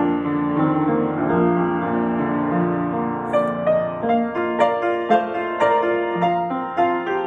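Lester Betsy Ross spinet piano playing a slow hymn arrangement. Held chords over a low bass come first; from about three seconds in, notes are struck more often, roughly two a second.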